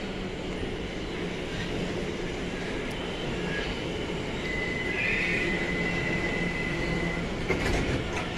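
Electric passenger train running alongside the platform with a steady low rumble; about halfway through its wheels give a high, steady squeal lasting a few seconds. A few sharp clicks come near the end.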